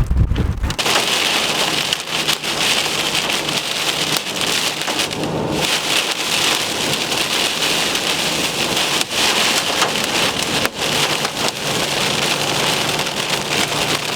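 Heavy rain and hail hitting a car's roof and windshield, heard from inside the car: a dense hiss full of sharp individual strikes that starts abruptly about a second in.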